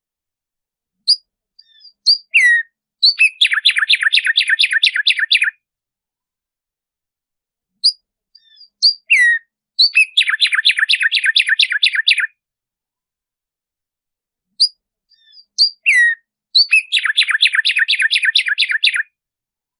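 Black-striped sparrow (tumba yegua) singing three songs about six seconds apart. Each song opens with a few scattered notes, then runs into a fast series of about six repeated notes a second, lasting about two and a half seconds.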